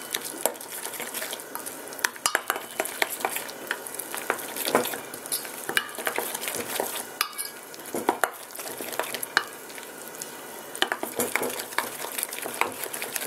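A metal spoon stirring a thick, wet grated-cassava batter in a stainless steel bowl: a steady wet scraping with frequent irregular clinks of the spoon against the bowl.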